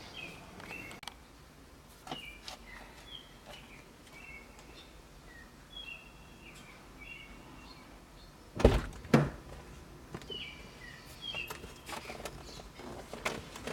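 Small birds chirping now and then in the background, with two sharp thunks about half a second apart a little past the middle.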